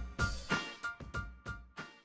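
Background music with a steady beat of drum hits, fading out near the end.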